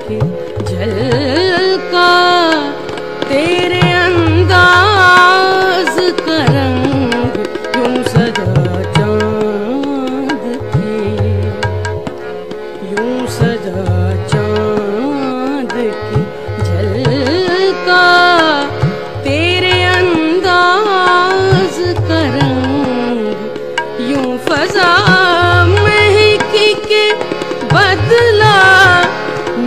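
A ghazal: a woman's voice singing long, ornamented phrases with short breaks between them. Underneath run a steady tabla beat and a held drone.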